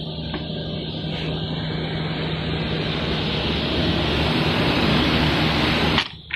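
A 9-head woodworking line sanding machine for mouldings running: a steady rushing noise over a low hum, growing gradually louder, then cutting off suddenly near the end.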